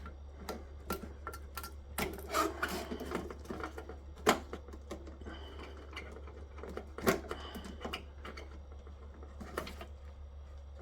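Irregular small clicks and knocks of parts being handled on a workbench while a solar inverter is dismantled, with two louder knocks about four and seven seconds in, over a steady low hum.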